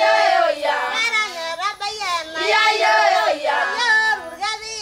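A group of Maasai women singing together, several voices moving in gliding, chant-like phrases.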